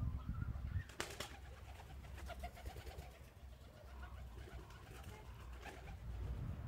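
Birds calling faintly, with a sharp knock about a second in over a low rumble.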